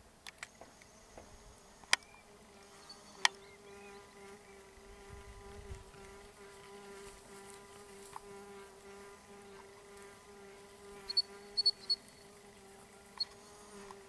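A flying insect buzzing close to the microphone: a steady, even-pitched drone that starts a couple of seconds in and keeps on. A few sharp clicks stand out over it, one about two seconds in, one about three seconds in, and a quick cluster near the end.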